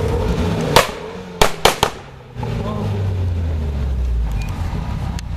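Tuned Mitsubishi Lancer's exhaust banging: one loud bang just under a second in, then three quick bangs about half a second later, with the engine rumbling low before and after. These are the pops and bangs of an anti-lag system.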